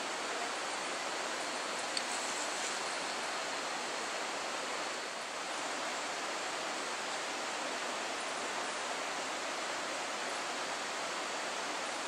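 A steady, even rushing hiss of forest ambience, with no animal calls standing out; a single faint click about two seconds in.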